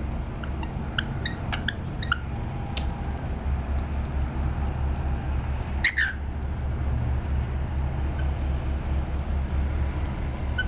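Rainbow lorikeets making a few short chirps and clicks, then one loud squawk about six seconds in as one bird climbs onto the other in a display. A steady low rumble runs underneath.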